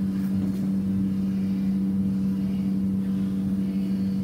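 Steady machine hum from running shop equipment: one constant low drone with fainter higher tones above it, unchanging in pitch and level.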